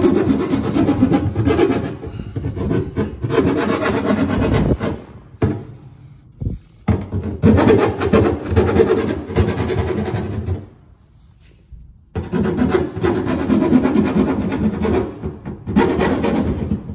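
Hand file scraping back and forth over the edges of a freshly drilled hole in the van's sheet-metal body, deburring it. It goes in three spells, with short pauses about five and eleven seconds in and a single knock in the first pause.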